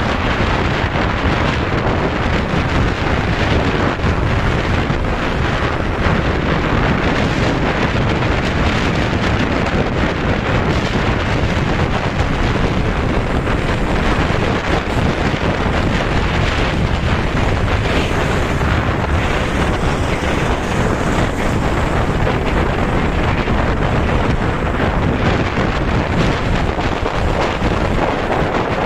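Loud, steady wind rushing and buffeting over the microphone of a camera carried in a moving vehicle.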